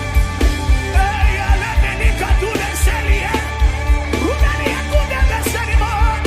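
Worship music: sustained keyboard chords over a steady kick-drum beat of about three beats a second. A wavering melodic lead line comes in about a second in.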